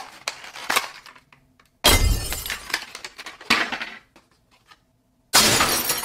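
A small cardboard toy box being ripped open by hand in several short bursts of tearing and crackling. The loudest burst comes about two seconds in, and another near the end.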